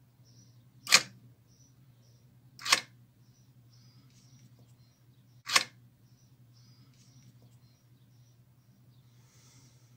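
Car central-locking door lock actuator firing its plunger to throw a sliding door latch, switched from the control card's push button: three short, sharp clunks, about a second in, about two seconds later, and again about three seconds after that.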